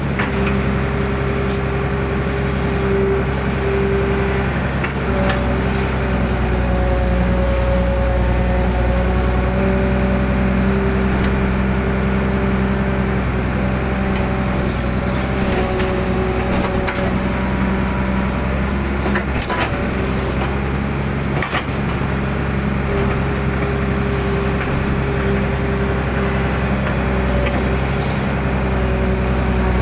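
Hydraulic excavator's diesel engine running steadily under load while digging wet sand from a ditch, with a hydraulic whine that shifts in pitch as the boom and bucket move, and a few brief knocks.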